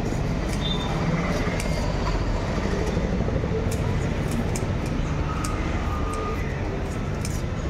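Knife scraping and clicking over a seabass's scales and fins in short, sharp strokes, over a steady low background rumble.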